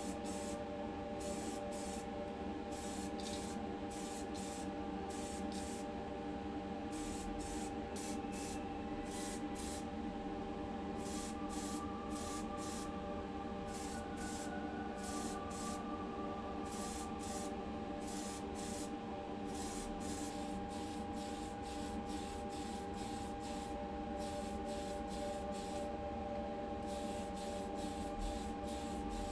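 Spray painting of a diecast model body: many short hissing bursts of paint spray, each under a second, over a steady motor hum.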